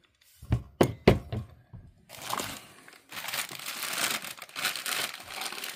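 Packing paper being crumpled and pulled away as an item is unwrapped: a few sharp knocks in the first second or so, then a long stretch of crinkling and rustling.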